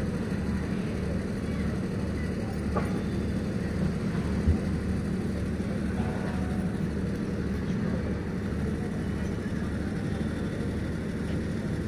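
Steady low machine hum with a regular low throb, and a single sharp knock about four and a half seconds in.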